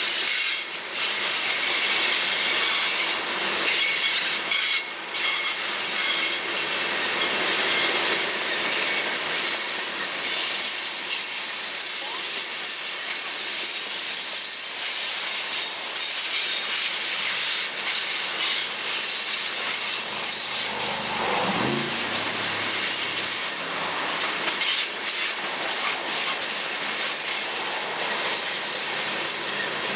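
Empty open-top coal cars of a long freight train rolling through a curve: a steady hiss and grind of steel wheels on the rails, with flanges rubbing and squealing. A brief falling tone comes a little past two-thirds of the way through.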